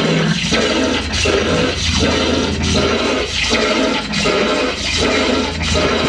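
Loud rushing noise that swells and dips about every three quarters of a second, over a steady low hum.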